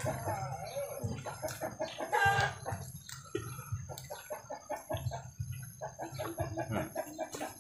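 Chickens clucking over and over, with one longer drawn-out call about two seconds in.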